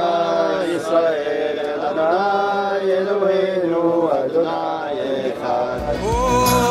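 A voice chanting a Jewish prayer melody in long, wavering held notes. Near the end a song with a bass beat comes in.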